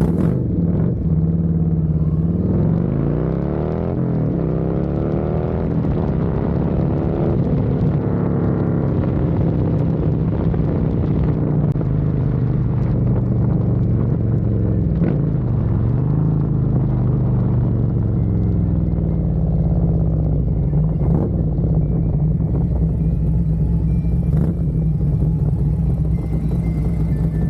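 Harley-Davidson Road Glide V-twin through a Thumper Moto stainless 2-into-1 exhaust, with a Screaming Eagle Stage 2 511 cam, running under way. The engine pitch climbs and drops back twice in the first several seconds as it pulls through the gears, then holds a steadier cruising note.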